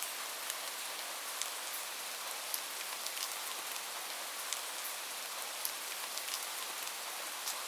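Light, steady rain falling, a constant hiss with scattered individual drops ticking on a surface.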